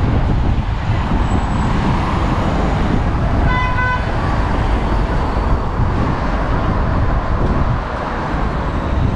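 Steady road-traffic noise from passing cars, with one short car-horn honk about three and a half seconds in.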